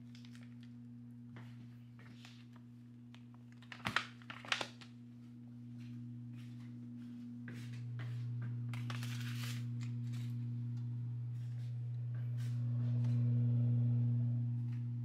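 Steady low electrical hum from an Amana electric oven running its preheat cycle, growing louder over the last several seconds. A few sharp clicks come about four seconds in, and a short rustle of handling about nine seconds in.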